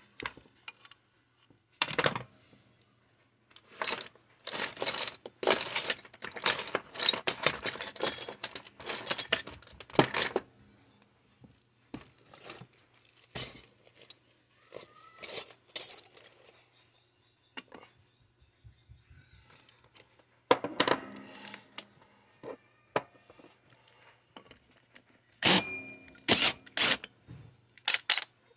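Metal chainsaw parts and hand tools clinking and knocking against a workbench during disassembly, with a dense run of rattling clatter from about four to ten seconds in and a few sharp metallic clinks near the end, one ringing briefly.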